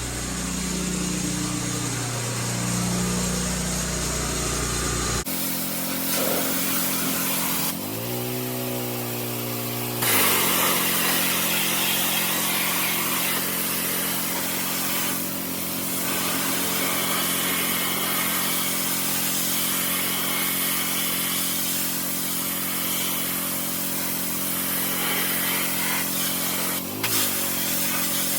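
A 20-year-old pressure washer's engine running steadily while the spray hisses against the wall. About eight seconds in, the engine note sags and climbs back over a couple of seconds, and it dips briefly again near the end.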